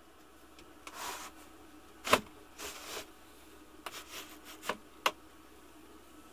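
Pleated blind on a camper-van window being unlatched and pushed up: soft rustling as it slides, with sharp plastic clicks, a loud one about two seconds in and a few more near the end as it catches in its housing.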